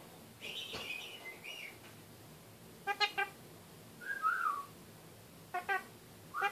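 Kakariki (red-fronted parakeet) calling: a warbling whistle about half a second in, quick groups of two or three short clipped chattering notes around three seconds in and again near the end, and a short falling whistle a little after four seconds.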